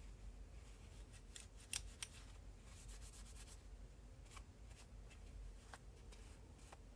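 Faint rubbing of a paper towel wiping grease off a Kershaw 1620ST pocket knife's metal handle liner, with a few light clicks as the metal parts are handled, the two clearest close together about two seconds in.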